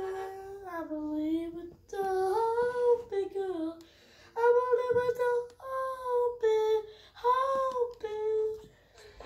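A boy singing without accompaniment, in short melodic phrases of held notes that slide up and down, with brief breaths between phrases.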